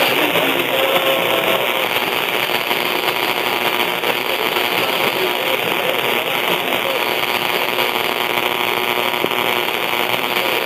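Steady static of an AM radio receiving a distant station on 1260 kHz, with the station's own audio faded down and almost buried in the noise.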